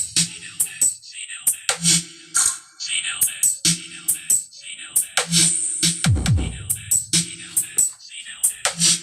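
Dance remix music with a hard electronic beat and hi-hats, and a deep falling bass drop about six seconds in, played loud through a loudspeaker sound system for a sound check.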